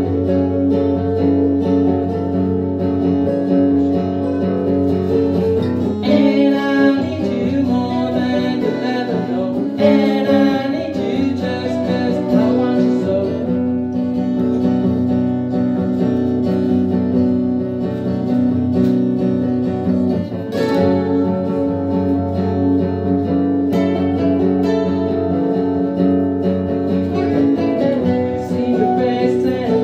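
Live acoustic music: two acoustic guitars strumming chords under a harmonica played into a microphone, its long held notes carrying the melody.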